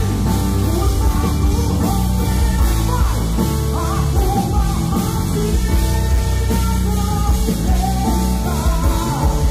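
Live gospel music from a concert stage: a full band with heavy bass under a singing voice.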